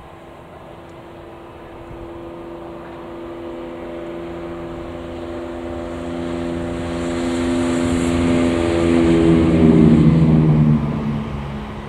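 ScotRail Class 170 Turbostar diesel multiple unit approaching and passing, its underfloor diesel engines droning louder and louder. The engine note drops in pitch as it goes by about ten seconds in, then fades quickly.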